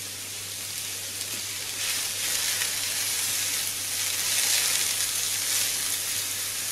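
Sliced leek sizzling in hot olive oil in a frying pan while being stirred with a silicone spatula. The sizzle grows louder about two seconds in.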